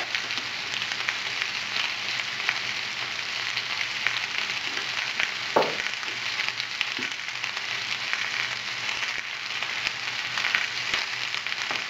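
Rabbit pieces and sliced onions sizzling in butter in a frying pan: a steady frying hiss with scattered small crackles and one sharper click about halfway through.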